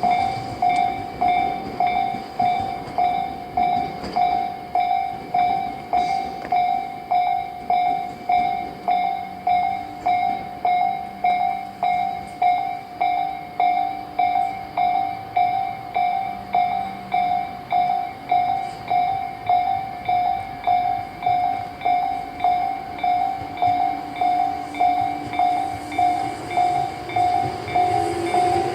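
Japanese level-crossing warning bell at the Tobu Isesaki Line crossing, ringing with steady, evenly spaced electronic dings about one and a half times a second: the crossing is closed for trains. A train rumbles beneath it, growing louder near the end.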